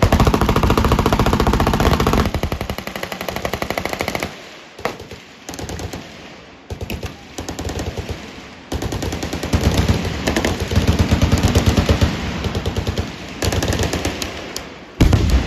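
Full-automatic machine-gun fire from several guns on a firing line, long rapid bursts overlapping and starting and stopping, with a heavy low boom near the end.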